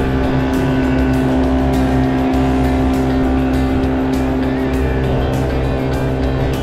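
Small boat's outboard motor running steadily at about three-quarter throttle under way, a constant even drone.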